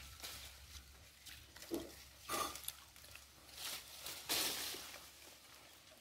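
Faint animal grunts, a few short ones spread out with gaps between them.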